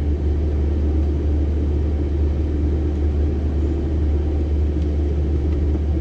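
Volvo FH 540 truck's six-cylinder diesel engine running steadily as the truck pulls away at low speed, heard from inside the cab as an even low drone.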